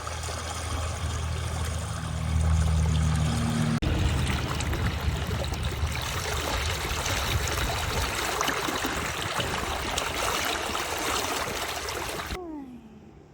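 Water running and trickling in a steady rush, with a low hum underneath for the first few seconds. It drops away suddenly near the end.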